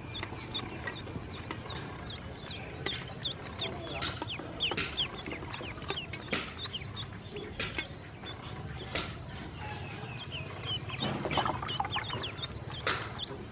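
Ducklings peeping steadily, many short high peeps that fall in pitch, with a few brief sharp clicks among them as they paddle in shallow water in a plastic tub.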